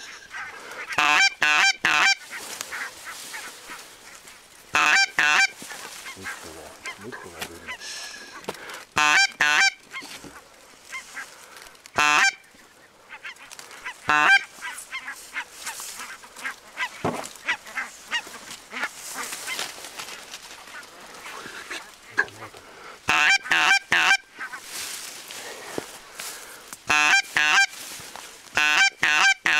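Geese honking in short runs of three or four quick calls, a run every few seconds, over light wind noise.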